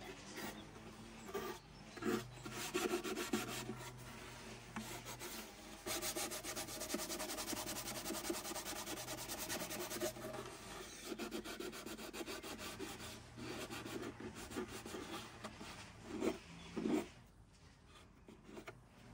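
Bare wooden viola body being hand-sanded: quick back-and-forth rubbing strokes, busiest in the middle. They stop with a couple of louder strokes about two seconds before the end.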